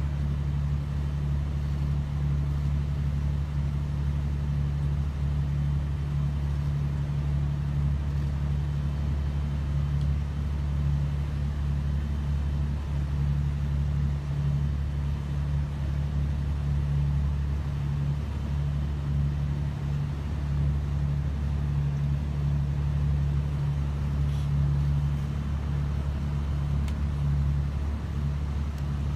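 Boat engine running steadily underway, a constant low drone.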